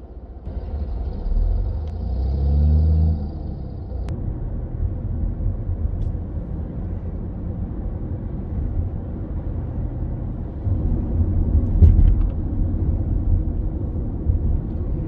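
Car engine and road noise heard from inside the cabin. The engine note rises as the car accelerates in the first few seconds, then settles into a steady low rumble while driving, with a louder swell of rumble near the end.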